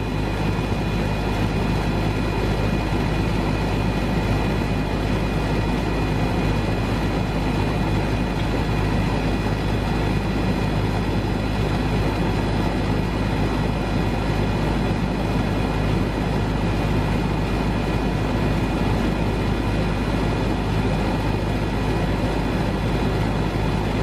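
Goodman central air conditioner's outdoor condensing unit running: a steady hum from the compressor and condenser fan, with several constant tones over an even rushing noise.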